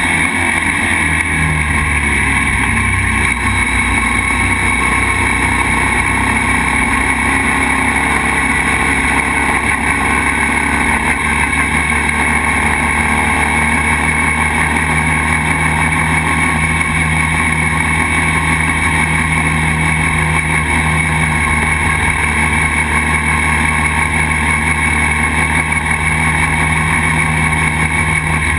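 Motorcycle engine running steadily while the bike cruises along a dirt road.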